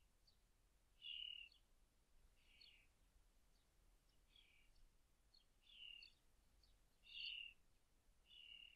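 A small bird calling over and over, faintly: a short chirp about every second and a half, with fainter high ticks in between.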